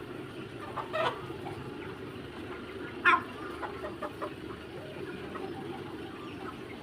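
Three-month-old Mía chickens clucking, with two sharper calls about a second in and about three seconds in, the second the loudest and sliding in pitch. A few softer clucks run over a steady low hum.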